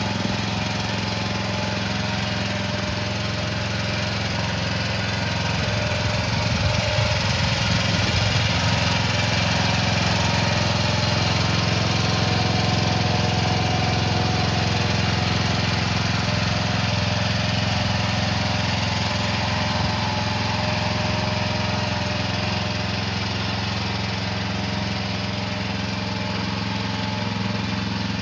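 Small engine of an AGT DM12-C mini excavator running steadily, a little louder for a few seconds about a quarter of the way in.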